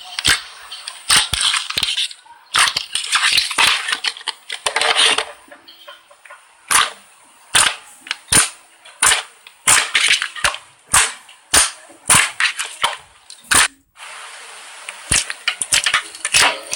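Slime being squeezed and pressed by hand: many sharp pops and clicks, one to two a second in the middle, with stretches of crackly squishing near the start and again near the end.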